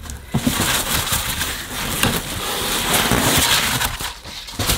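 Bubble wrap and polystyrene packing being pulled out and shifted in a cardboard box: continuous crinkling and rustling.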